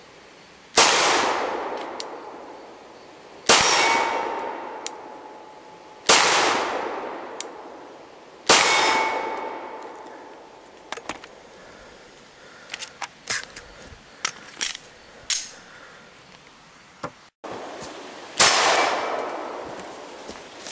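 Four 9mm Glock 17 pistol shots about two and a half seconds apart, each trailing a long echo, with hanging steel targets ringing briefly after two of them. A run of small clicks and clacks follows as the pistol is handled, then one more shot near the end.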